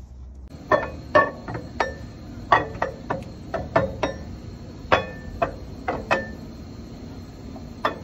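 Sharp metal clinks, about fifteen in quick irregular succession and then one more near the end, each with a short ring: steel parts knocking together as a camshaft is set into a Cummins ISX cylinder head.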